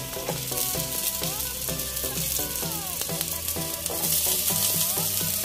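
Ginger strips sizzling in hot cooking oil in a frying pan. The sizzle grows louder about four seconds in, as chopped onion and garlic are dropped into the oil. Soft background music plays under it.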